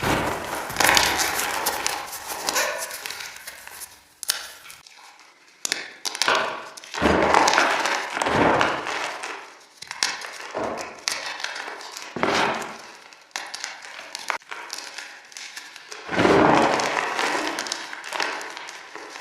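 Pieces of fresh gym chalk crunching and crumbling as they are crushed, about a dozen crunches, each trailing off in an added echo.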